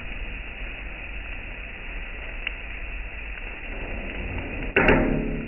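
Chicken kothu frying on a flat iron griddle with a steady sizzle; near the end a single loud metal-on-metal clang rings out, like a kothu chopping blade striking the griddle.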